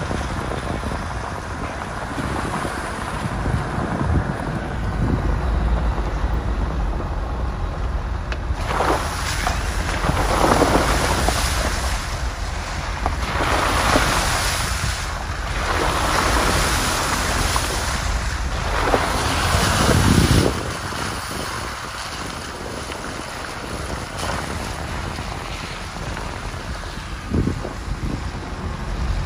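Off-road 4x4 driving: a steady low engine and drivetrain rumble with wind buffeting the microphone, and repeated surges of rushing noise from about nine to twenty seconds in.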